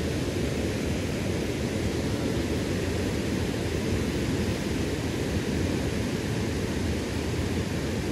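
Steady rush of a river's current running over shallow riffles.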